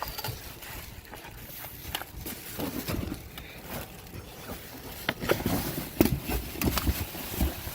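Irregular rustling and clatter of food packages and rubbish being handled in a dumpster, with a cluster of sharp knocks and thumps in the second half.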